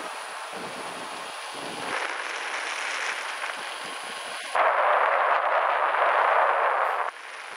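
Wind rushing over the microphone of a camera on a moving motorbike, with a much louder burst of wind buffeting about four and a half seconds in that cuts off suddenly some two and a half seconds later.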